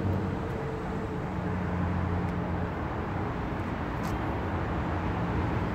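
Steady low rumble of distant city traffic with a faint low hum, plus a single light tap about four seconds in.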